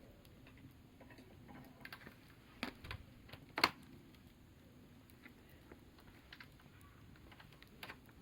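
Campfire crackling: sparse, faint ticks and pops from burning wood, with one sharper pop near the middle.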